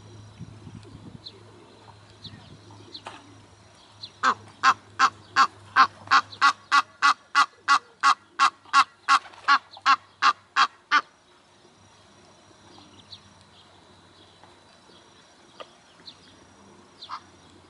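Egyptian goose calling: a run of about twenty loud, evenly spaced honks, about three a second, starting about four seconds in and stopping after about seven seconds.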